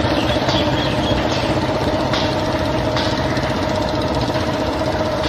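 Several Royal Enfield Bullet motorcycles running steadily at low speed, their single-cylinder engines blending into one continuous engine note.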